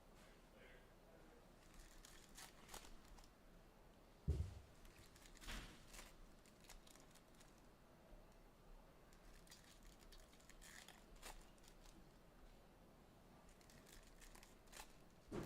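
Mostly near silence with faint handling noises: light crinkling and small clicks, likely from trading card pack wrappers and boxes being handled. A dull thump about four seconds in, and another near the end.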